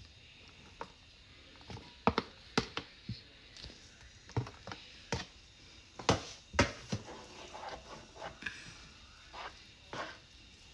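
A cooking spoon knocking and scraping against a skillet in irregular clicks and taps while shredded chicken is stirred into a thick, creamy sauce.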